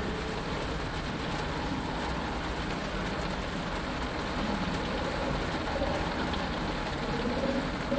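Steady rain falling on a fighter's cockpit canopy, heard from inside, over a low continuous rumble. Faint wavering tones drift in and out beneath the rain.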